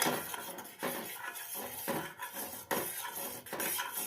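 A spoon scraping and clinking against a cooking pot in repeated strokes, about one a second, as turmeric is stirred into freshly boiled kadha.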